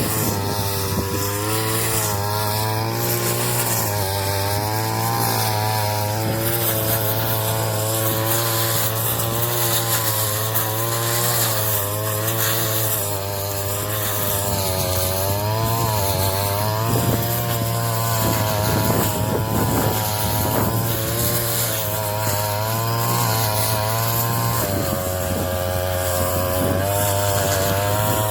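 Engine-driven straw cutting machine running steadily, its pitch wavering up and down as it works.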